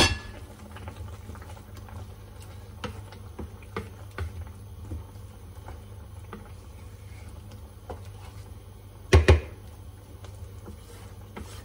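Tomato sauce simmering in a non-stick frying pan while a wooden spatula stirs it, with occasional light scrapes and taps on the pan and one louder knock about nine seconds in. A steady low hum runs underneath.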